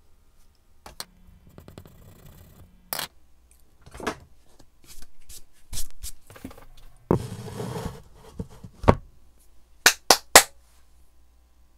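Krylon matte finish aerosol spray hissing in two short bursts over the oil-pastel drawing, among scattered knocks and clicks of handling. Three sharp clicks close together near the end.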